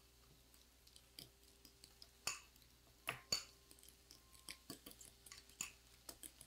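Avocado being mashed in a small glass bowl: faint, irregular clicks and taps of the utensil against the glass, a few every second.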